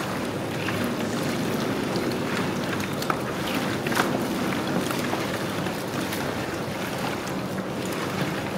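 Hands mixing raw chicken pieces in a wet spice marinade in a large metal pot: steady wet squelching and sloshing, with a few clicks.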